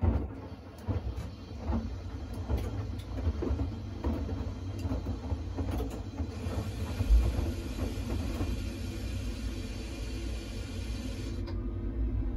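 Siemens iQ700 front-loading washing machine's drum turning during the heating stage of a Shirts wash, the wet shirts tumbling with short knocks about once a second. A steady hiss joins about halfway through and cuts off suddenly near the end.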